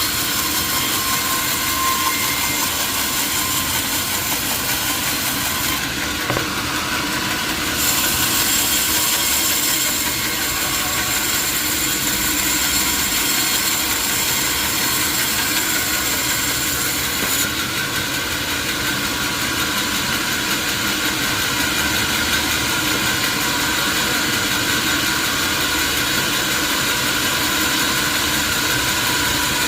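Sawmill machinery running steadily and loudly, with a thin high-pitched whine from about 8 to 17 seconds in.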